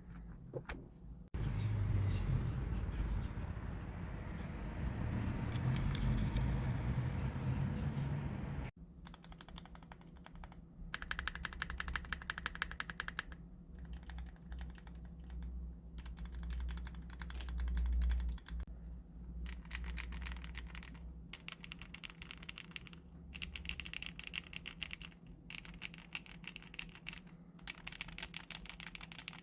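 Typing on a gasket-mount stacked-acrylic custom mechanical keyboard with Gray Wood V2 switches: dense runs of keystrokes with short pauses. The first stretch, to about 9 s in, is louder and deeper; after that come lighter, sharper clicks.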